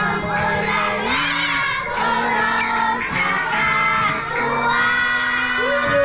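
A group of children singing a Malay children's song together in unison, holding each note for about a second, with other children's voices and shouts over it.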